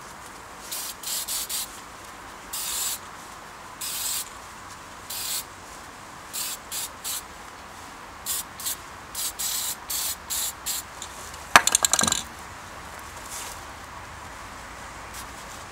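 Aerosol spray can hissing in many short squirts onto a forged steel piece. About eleven and a half seconds in comes a brief, sharp rattling clatter, the loudest sound.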